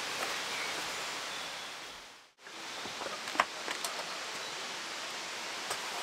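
Steady outdoor background hiss. It fades out to near silence a little over two seconds in, then comes back with a few faint clicks.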